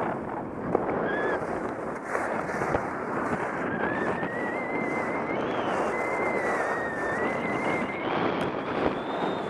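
Snowboard riding down firm, partly icy groomed snow: the board's edges scrape and hiss steadily, mixed with wind rushing over the microphone. From about a second in, a thin, wavering high whistle runs above the noise.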